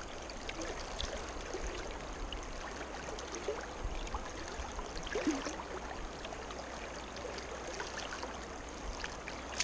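Steady rush of a creek's flowing water.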